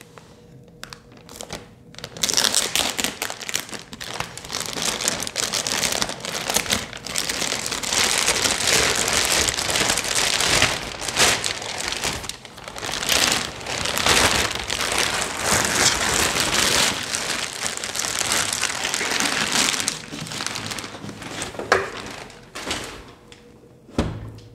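Thin clear plastic bag crinkling and rustling as it is pulled off a new laser printer and bunched up, on and off for most of the time and quieter near the end. One sharp knock comes near the end.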